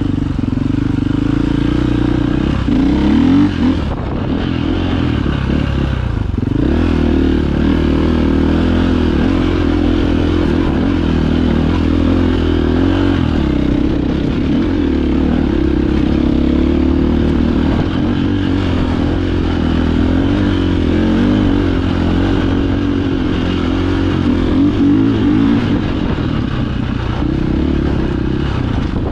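2015 KTM 690 Enduro R's single-cylinder four-stroke engine running as the bike is ridden on a rocky dirt trail. Its note rises and falls with the throttle, easing off briefly about four and six seconds in.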